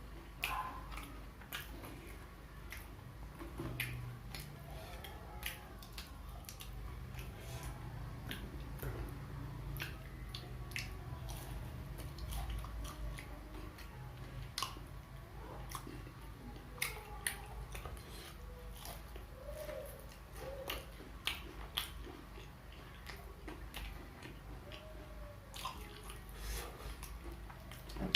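Close-up chewing and biting of fried Indonesian snacks (gorengan): scattered crisp crunches and wet mouth clicks, over a steady low hum.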